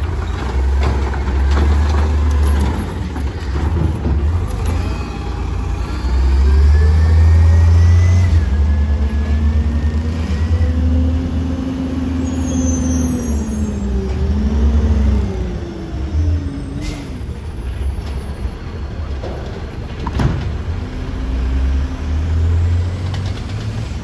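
Natural-gas automated side-loader garbage trucks running, with a heavy low engine rumble and a whine that rises and falls as they pull away and work. There is a brief air-brake hiss partway through and a sharp knock about 20 seconds in.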